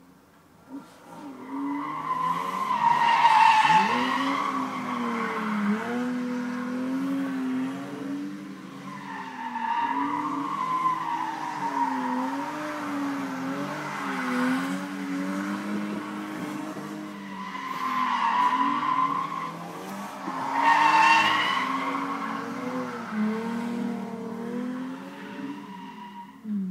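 Two BMW cars drifting round a roundabout: engines revving, their pitch rising and falling, with tyres squealing. The squeal swells loudest four times, about three, ten, eighteen and twenty-one seconds in.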